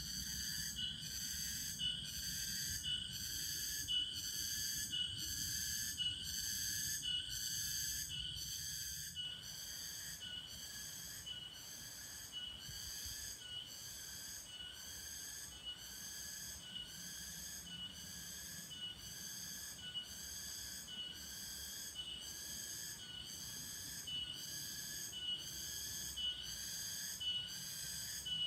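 A high, whistle-like call repeating steadily about once a second. A low rumble under it stops abruptly about nine seconds in.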